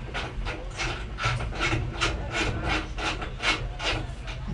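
Rhythmic rubbing or rasping strokes, about three a second, over a steady low hum.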